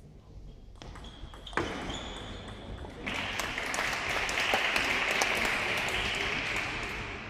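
A table tennis ball clicking off bats and table in the last strokes of a rally. From about three seconds in the spectators applaud, swelling and then fading near the end.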